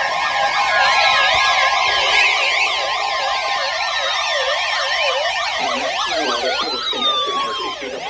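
Several electronic sirens sounding at once, each warbling rapidly up and down, with a few long falling glides. Steady tones underneath stop a little over two seconds in.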